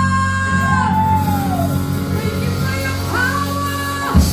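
Live gospel worship music through a PA: a woman's voice holding long, gliding high notes over a steady low accompaniment, with a sharp low hit near the end.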